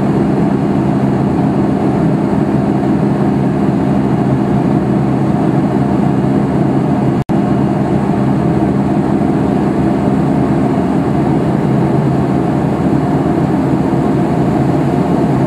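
Steady aircraft cabin noise on final approach: the engines' constant drone with a low steady hum under a wash of airflow noise. It is broken once, about seven seconds in, by a split-second dropout.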